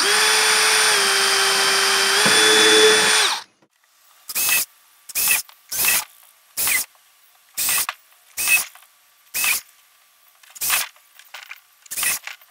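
Cordless drill with a small 3/32-inch bit drilling pilot holes through a plastic kayak deck: one steady run of about three seconds with its pitch stepping down and back up, then a string of short bursts about one a second as it drills hole after hole around the hatch opening.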